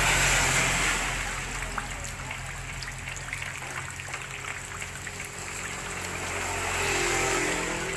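Water trickling and splashing steadily, over a low steady hum.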